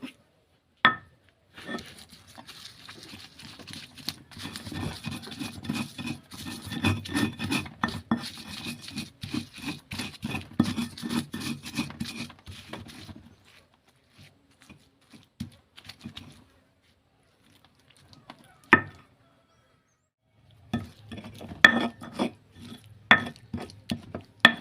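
Pestle grinding fried chilies, tomatoes, shallots, garlic and shrimp paste into sambal terasi in a mortar (ulekan and cobek): rapid, dense scraping and knocking for about ten seconds. After that come only a few scattered knocks, one sharp one, and then a short run of grinding again near the end.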